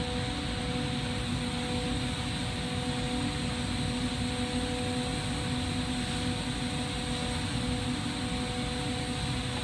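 Glassworking torch flame burning steadily while colour glass is heated to pull stringers: a continuous even rushing hiss with a low steady hum under it.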